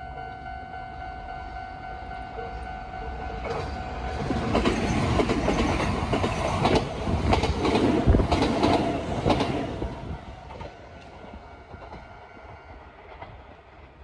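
Kintetsu electric train passing close at speed, its wheels clicking over the rail joints as it goes by; loudest in the middle and fading as it curves away. A steady ringing tone is heard in the first few seconds, before the train arrives.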